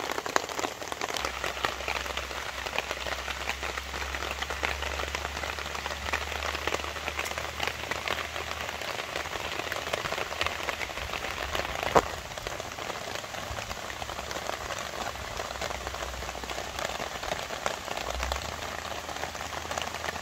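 Heavy rain falling steadily on a tarp overhead, a dense patter of drops. A single sharp tap stands out about twelve seconds in.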